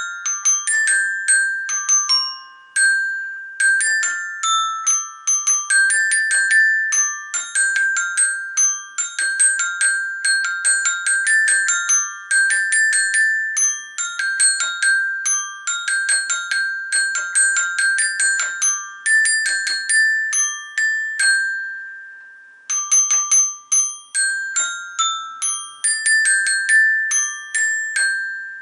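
Toy xylophone playing a quick, continuous melody of high, bell-like struck notes, each ringing briefly and fading, with a short pause a little over twenty seconds in.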